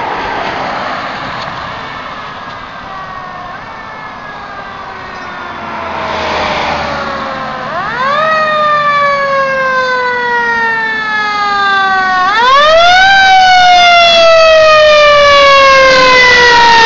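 Fire engine siren on a Pierce Arrow pumper responding to a call. It winds down faintly at first, then is wound up sharply about eight seconds in and again about four seconds later, each time sliding slowly down in pitch. It gets much louder as the engine comes close.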